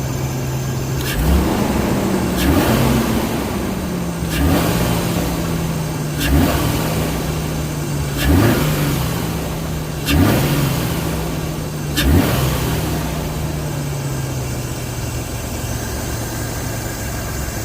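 Nissan RB25 inline-six engine breathing through a freshly fitted HKS pod air filter: it idles and is given about seven quick throttle blips, roughly one every two seconds, then settles back to a steady idle. The intake sound is slightly louder than with the previous Apexi filter.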